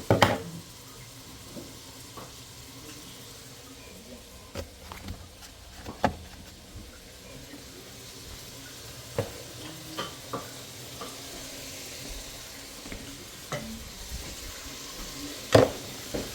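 Food frying in a pan with a steady sizzle, and a cooking spoon stirring and knocking against the pan every second or two, with the loudest knock near the end.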